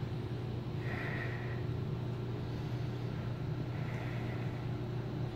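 Steady low hum of indoor room tone, with two faint, soft higher sounds about one and four seconds in.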